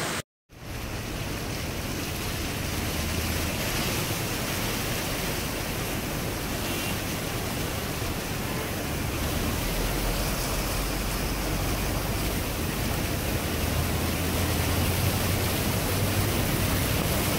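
Fast-flowing flash-flood water rushing as a steady noise, with a low rumble that swells and fades. The sound drops out completely for a moment just after the start.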